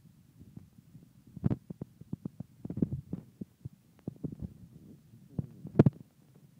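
Crested Cream Legbar hen preening at close range: irregular soft clicks and taps of her beak working through her feathers, over low thumps and rustling, with the sharpest click about five seconds in.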